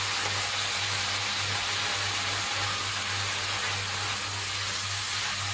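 Rice and chicken frying in a stainless steel wok, a steady sizzle as they are stirred, over a steady low hum.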